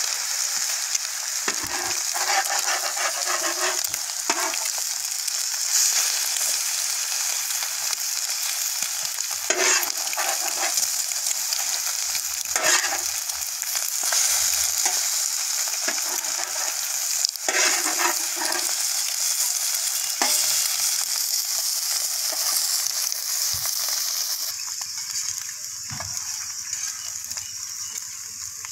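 Food sizzling in a frying pan with a steady hiss, while a utensil stirs it in a few scraping strokes. The sizzle dies down near the end.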